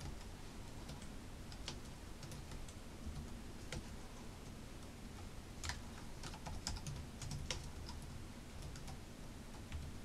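Faint, fast, irregular typing on a Xiaomi MiiiW membrane keyboard: soft key presses clicking in quick uneven runs.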